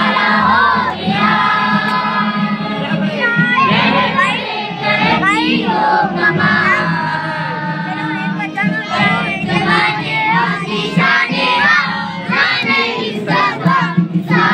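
Children singing together over music with a steady accompaniment.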